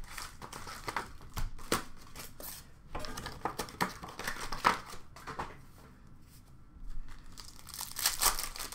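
Plastic and foil wrapping on a hockey card box and its packs crinkling and tearing in irregular rustles as the box is unwrapped and a pack is handled, with a quieter stretch about two-thirds of the way through.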